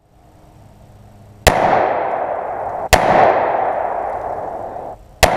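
Three gunshots, the first about a second and a half in, the next about a second and a half later, the last near the end, each followed by a long echoing decay.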